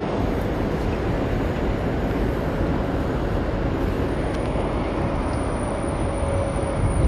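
Steady, low-heavy city street noise with a traffic rumble. A faint high whine comes in about halfway through.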